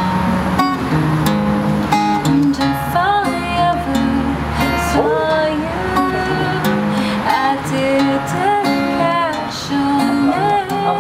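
Acoustic guitar strummed in a slow song, with a voice singing over it from about three seconds in.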